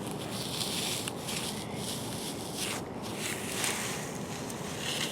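Wind blowing across the microphone: a steady rushing noise that swells and eases in gusts.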